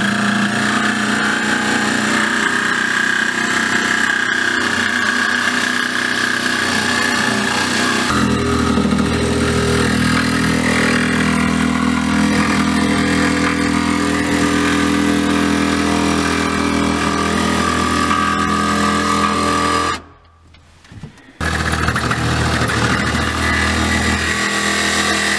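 Worx jigsaw cutting a hole through solid fiberglass, running steadily. It stops for about a second and a half near the end, then starts again.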